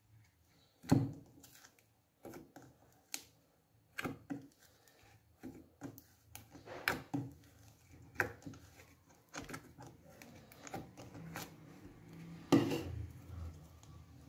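Thick, glossy slime being poked and squeezed by hand in a plastic tub, making irregular sticky clicks and pops, the loudest about a second in and again near the end.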